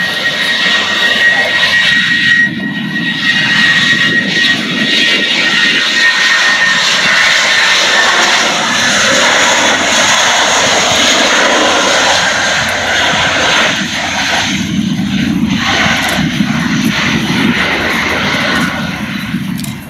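Airbus A320's two IAE V2500 turbofan engines at takeoff thrust during the takeoff run: a loud, steady rush of jet noise. A high fan whine rides on top for the first several seconds and then fades out.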